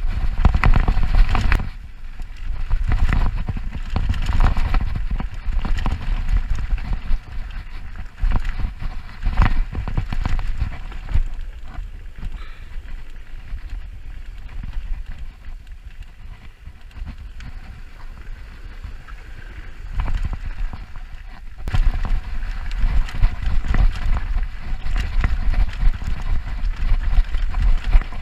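Mountain bike riding down a rough dirt trail: a low tyre rumble over dirt and rocks with a steady clatter of knocks and rattles from the bike. The sound drops to a quieter stretch in the middle, then the loud rumble and rattling return suddenly about two-thirds of the way through.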